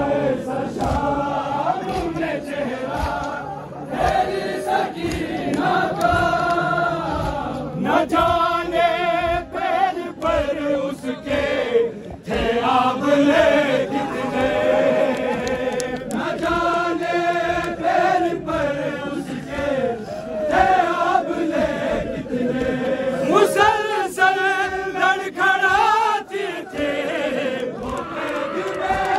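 Many men's voices chanting a noha, a Shia lament for the martyrs of Karbala, together in a rising and falling melody.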